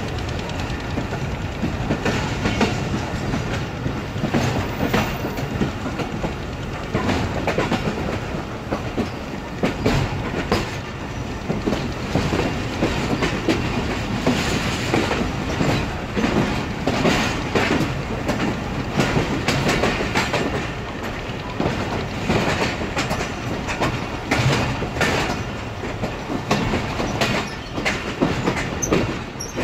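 Wheels of a Pakistan Railways Karachi Express passenger train clacking over rail joints as it rolls along, over a steady running rumble, heard from an open coach door.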